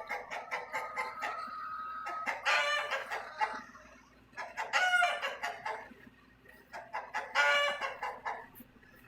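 Roosters crowing three times, each crow a long pitched call a couple of seconds apart, with chickens clucking softly in the first couple of seconds.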